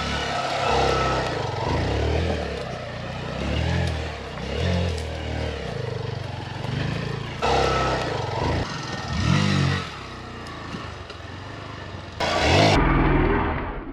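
Hero Xpulse 200's single-cylinder four-stroke engine revving up and down in low gear as the bike is worked over a rough trail, with several sharp throttle surges, the loudest near the end.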